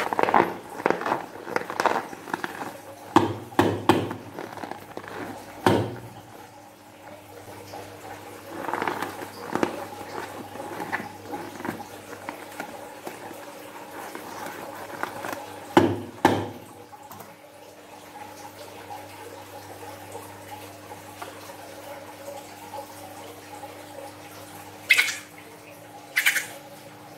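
A liquid-filled latex balloon squeezed and kneaded by hand, with short rubbery squeaks and squelches in bursts, then liquid streaming out of the balloon's neck into a glass dish near the end.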